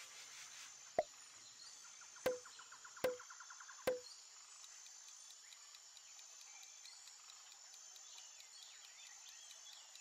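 Four short pop sound effects over the first four seconds, the first on its own and the other three a little under a second apart, with a faint quick ticking between the second and fourth. Under them runs a faint, steady, high-pitched chirring like insects.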